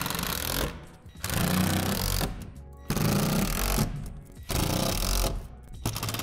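Cordless power drill driving screws into the shed's plastic wall panels, in about five runs of a second or so each with short pauses between. Background music plays underneath.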